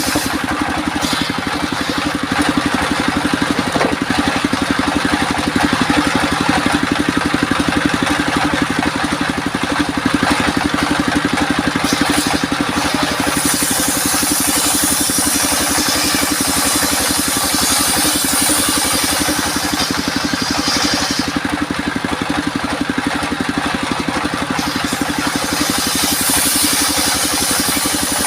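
Homemade circular sawmill running, its drive engine beating steadily, with a high-pitched whine coming in for a few seconds mid-way and again near the end as the blade cuts albasia timber.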